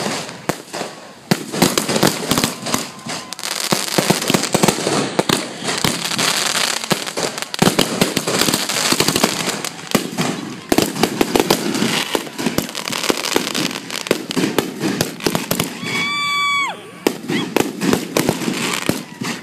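Aerial fireworks going off in quick succession: a dense run of bangs and crackling bursts. Near the end there is a brief high whistle.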